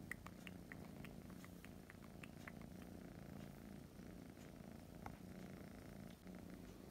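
Kitten purring faintly and steadily while being stroked, a low rumble that swells and eases in a slow, regular rhythm.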